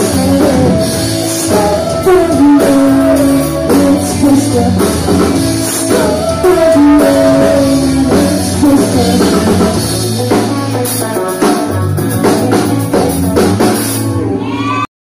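Live rock band playing loud: a singer over electric guitars and a drum kit. The sound cuts off suddenly near the end.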